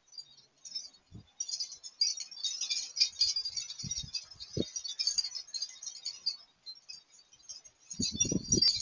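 A calico cat eating dry kibble from a bowl: rapid crackly crunching and rattling of the pieces, with a few short dull thumps and a louder cluster of them near the end.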